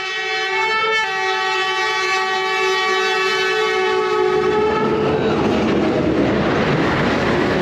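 A train horn sounding one long two-note blast for about five seconds, then the noisy rumble of the train rolling past.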